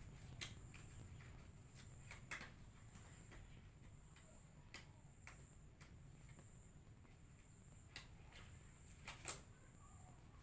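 Near silence: faint room tone with a steady high whine and a few scattered faint clicks and knocks.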